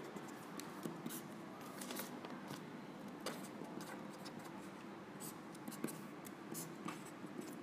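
Felt-tip marker writing on paper: faint, short scratchy strokes and small ticks as letters and figures are written.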